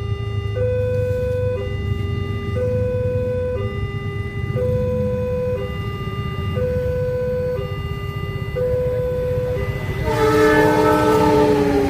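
Railway level-crossing warning alarm sounding two alternating tones, switching about once a second, over a low rumble. About ten seconds in, a train's horn sounds, a chord of several tones sliding slightly down in pitch as it passes.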